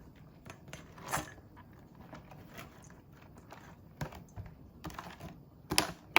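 Irregular light clicks and taps of small objects being handled, a louder one about a second in and the sharpest near the end.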